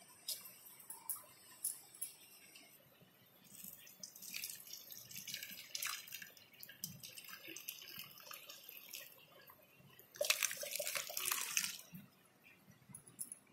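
Milk split with lemon juice being poured through a cotton cloth in a strainer: a stream of whey splashing onto the cloth from about three and a half seconds in, then a heavier, louder slop about ten seconds in as the curds go in with it. This is the whey draining off the chhena curds.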